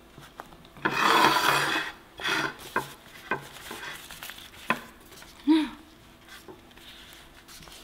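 Banana leaves rustling and crackling as they are folded by hand around a fish, loudest in a burst about a second in, with a few sharp clicks against the plate. A brief pitched hum sounds a little past the middle.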